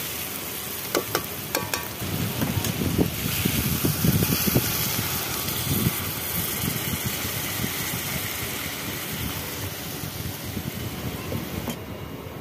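Metal spatula clicking and scraping in a steel kadai of fried eggs and onions, then water poured into the hot pan with a louder rushing hiss, settling into a steady sizzle and bubbling boil.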